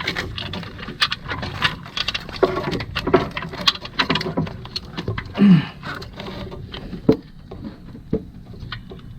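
Irregular metallic clinks, taps and scrapes of hands and tools working in an engine bay, fitting a mounting bolt and part into place, with a few sharper knocks.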